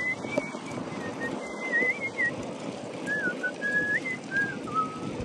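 A man whistling a tune: one wavering melody line in short phrases with brief pauses, over the steady rumble of bicycle tyres on the path.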